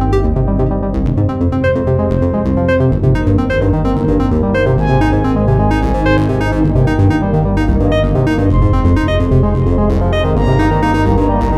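An Android phone ringtone playing: a synthesized electronic melody of quick pitched notes over a steady bass.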